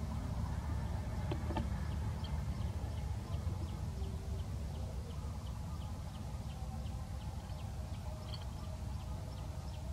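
Outdoor ambience: a steady low rumble, with a couple of soft clicks about a second and a half in. From about two seconds in, faint high chirps repeat about three times a second.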